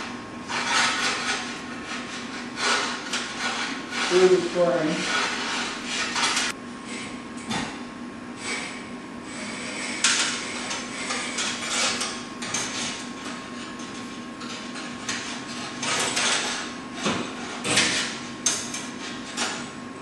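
Irregular metallic clinks, knocks and rubbing as a garage door extension spring and its steel safety cable are handled and fitted against the door's metal track.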